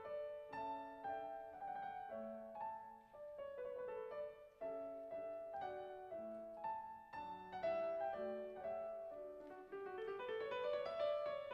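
Two grand pianos playing a classical duet, with steady, overlapping notes and a quick rising run of notes near the end.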